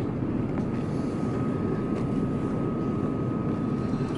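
A steady low engine drone with a thin steady whine above it, holding level without rising or falling.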